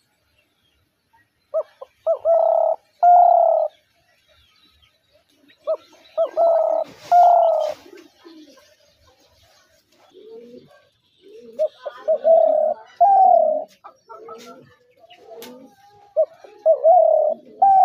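Spotted dove cooing: four phrases about five seconds apart, each a few short coos ending in two longer notes. Fainter, lower cooing sounds come between the phrases in the second half.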